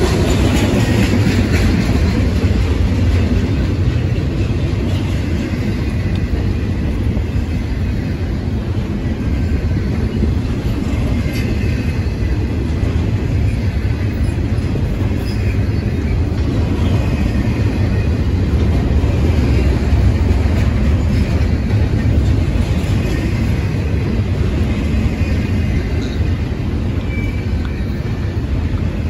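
Double-stack intermodal container freight train rolling past, a steady rumble of steel wheels on rail with a few brief high-pitched squeals.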